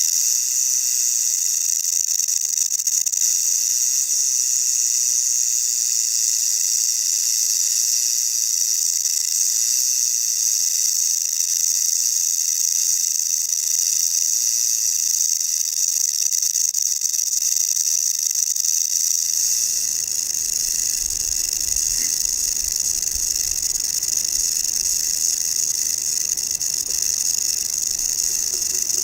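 Rattlesnake shaking its tail rattle in one continuous dry, high-pitched buzz. About two-thirds of the way through, a low rumble joins underneath.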